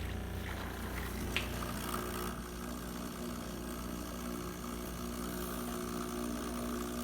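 Breville BES870XL espresso machine's vibratory pump running for a test shot, a steady low hum, with its solenoid valve assembly newly replaced. A fainter higher whine joins about two seconds in.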